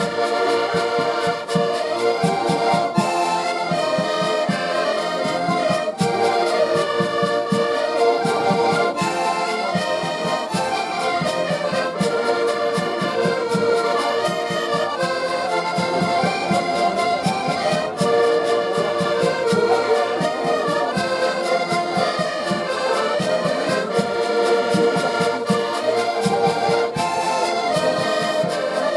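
An ensemble of diatonic button accordions playing a lively traditional folk tune together. A steady beat of bass notes runs under the melody, and the phrase repeats about every six seconds.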